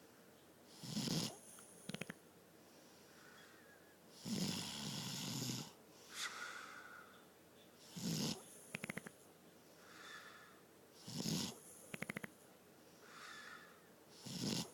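A sleeper snoring in a repeating cycle about every three and a half seconds. Each loud rasping snore is followed by a quick fluttering rattle and then a fainter whistle-like note. One snore about four seconds in is drawn out longer than the rest.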